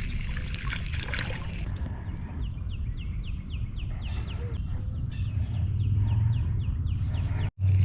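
Low, steady outdoor rumble with a bird singing a quick run of short falling notes, about three a second, for several seconds. The sound cuts off abruptly near the end.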